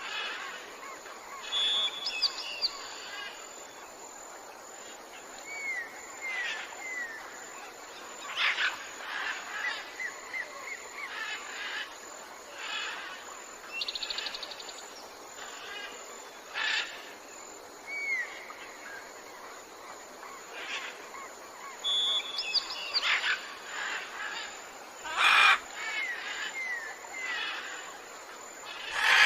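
Several wild birds calling over a steady background hiss of outdoor ambience: short chirps, brief curving whistles and quick trills, with the same calls coming back in a repeating loop.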